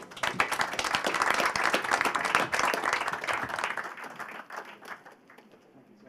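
Audience applauding. The clapping starts at once, holds strong for about three seconds, then thins and dies away by about five seconds in.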